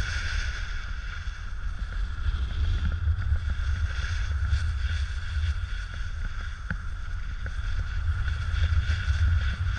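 Wind buffeting an action camera's microphone on a moving snowboarder, a steady low rumble, with the hiss of the snowboard sliding over snow.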